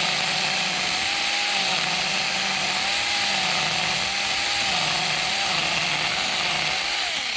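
Saker battery-powered mini chainsaw running steadily while cutting into a small stump, a whine that wavers a little under load. It stops just before the end.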